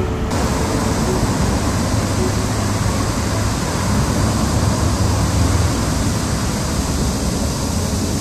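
Rain and city traffic: an even, steady hiss with a strong low rumble underneath.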